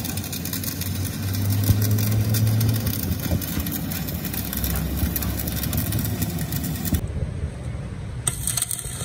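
Stick-welding arc crackling and sizzling steadily as a weld is run inside a cracked truck rear axle housing. The arc stops about seven seconds in.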